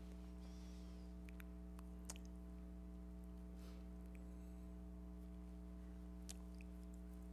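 A quiet pause filled by a steady low electrical hum, with two faint clicks, about two seconds in and a little after six seconds in.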